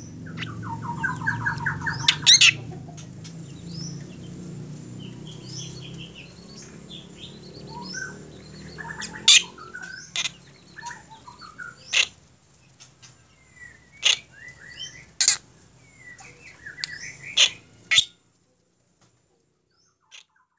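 Caged black drongo calling: a fast run of repeated notes at the start, then a varied mix of chirps, whistles and loud sharp calls. The sound cuts off suddenly near the end.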